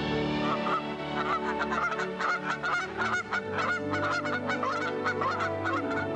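A flock of Canada geese honking: many short calls in quick succession, over soft background music.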